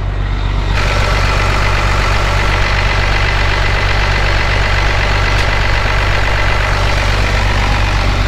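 Tractor's turbocharged diesel engine running steadily, heard up close at the open engine bay. About a second in it gets brighter and a steady whine comes in over the low engine note.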